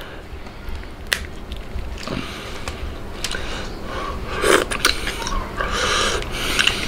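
Someone eating crab by hand: shell cracking and being picked apart, with wet sucking and smacking as the meat goes into the mouth. A sharp crack about a second in, and busier mouth and shell noises from about four seconds on.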